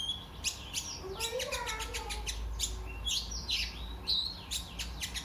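Kolibri ninja sunbird singing: a fast, busy run of sharp chirps and short downward-sliding whistled notes with a steady low hum underneath.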